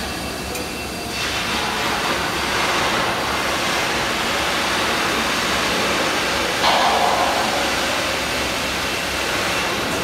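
Steady machinery noise, a broad hiss that grows louder about a second in and holds, with one short sharp knock about two-thirds of the way through.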